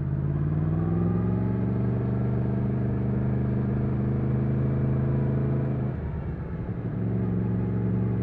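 2020 Yamaha MT-10's crossplane inline-four engine pulling at low revs, its pitch rising slightly over the first second or so and then holding steady. About six seconds in the note breaks up and dips briefly before picking up again.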